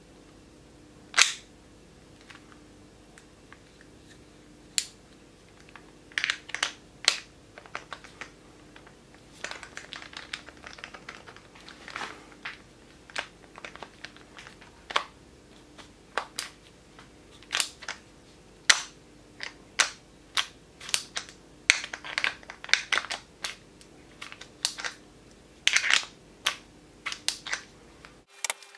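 Irregular plastic clicks and snaps of a Festool TI 15 drill being handled as its collar is turned and its front attachment worked on and off, in scattered single clicks and short clusters. A faint steady hum runs underneath.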